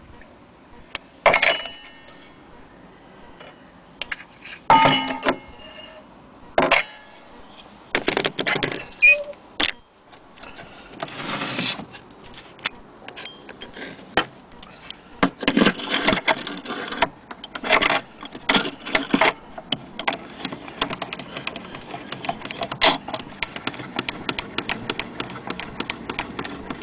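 Metal parts of an old HMV gramophone being handled: irregular clicks, knocks and rattles, which come faster and closer together in the last few seconds as the winding crank is handled.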